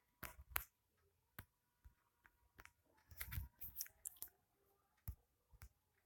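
Faint, irregular clicks and small taps over near silence, a few single ones and a quick cluster about three to four seconds in.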